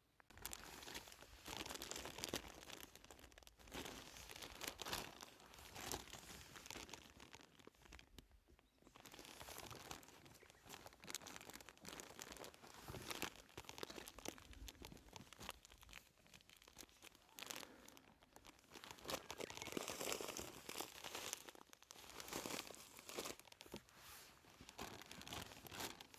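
Irregular crinkling and rustling with many small clicks, like something such as packaging or gear being handled.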